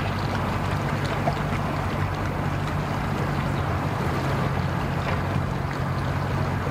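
Boat outboard motor idling at low speed, a steady low hum under a haze of outdoor noise.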